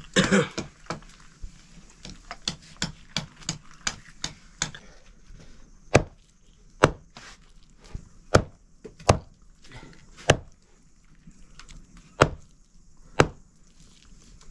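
Chicken being chopped into pieces with a heavy knife on a wooden block: a run of quick light cuts at first, then seven hard single chops at uneven intervals of about a second from roughly six seconds in.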